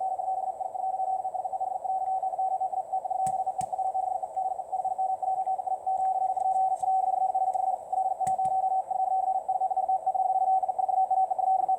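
Very fast machine-sent Morse code (CW) received on a shortwave radio: a single beep tone keyed on and off in a rapid, unbroken stream over band hiss, sent by a computer, not a person. A few sharp static clicks come through about three seconds in and again about eight seconds in.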